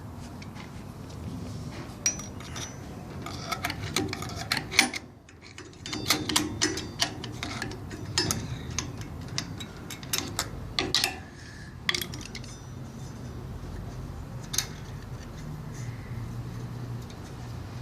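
Metal hand tools clicking, clinking and scraping against the E clutch drum of a ZF 6HP19 automatic transmission during disassembly, in irregular clusters of sharp clicks, mostly in the first two thirds; one last click comes near the end.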